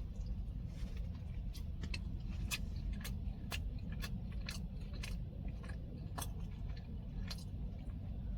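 Close-up chewing of a burger: wet mouth clicks and smacks, roughly one or two a second, over a steady low rumble inside the car.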